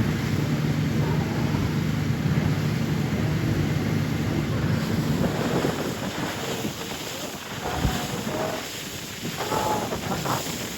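Motorboat ride: an engine drone with wind buffeting the microphone and water rushing past the hull. The engine hum is strongest in the first half and fades after about five seconds, leaving mostly wind and water.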